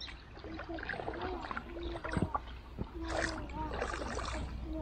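Oars rowing a framed fishing raft: water swishing with the strokes, with several sharp knocks and short squeaks from the oars working in their oarlocks.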